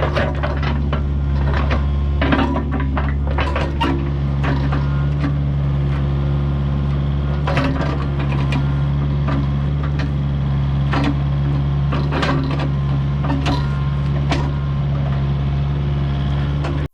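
Kubota U55-4 mini excavator's diesel engine running steadily, with irregular clanks and knocks from the machine working.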